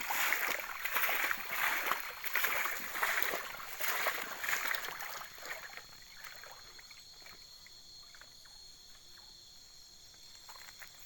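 Water splashing and swishing in repeated strokes, roughly once a second, for about five seconds. Then it goes quieter, leaving a steady high-pitched hum of night insects with a few light knocks.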